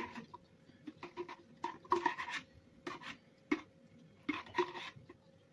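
Spatula scraping and knocking inside a glass jar, working sticky wine-soaked fruit out into a mixing bowl: a run of short, irregular scrapes and taps.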